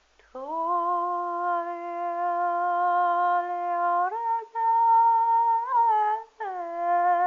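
A voice humming long, steady held notes: a low note, then a step up to a higher note about four seconds in with two short breaks, then back down to the low note.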